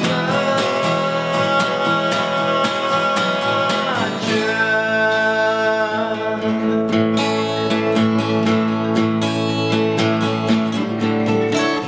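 Two acoustic guitars strummed together in a full rhythm, with a man singing over them.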